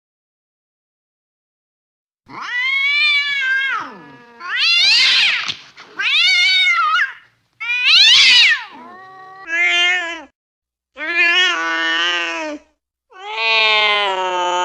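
Angry domestic cat yowling: about seven long, wavering yowls one after another, starting after about two seconds of silence.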